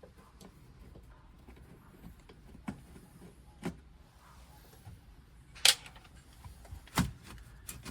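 A few scattered sharp clicks and knocks of tools and metal being handled while screws are taken out of an aluminium roof rail. The loudest is a sharp click a little past halfway, followed about a second later by a heavier knock.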